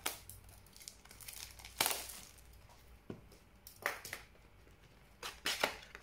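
Hands handling a cardboard trading-card booster box, with a string of short rustles, scrapes and crinkles from the packaging as the lid flap is worked open.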